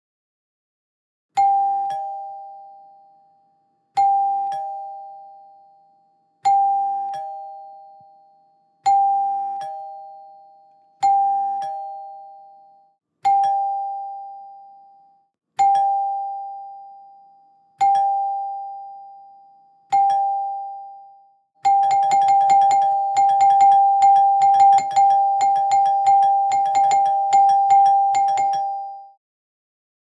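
Two-tone doorbell chime ringing 'ding-dong', a higher tone then a lower one, each let ring out. It sounds nine times about two and a half seconds apart, then rings rapidly over and over for about seven seconds before stopping.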